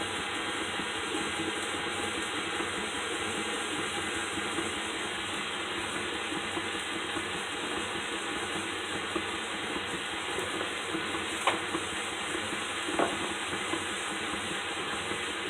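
Electric mixer running steadily, beating a cream cheese, egg and powdered sugar filling smooth, with a couple of sharp clicks near the end.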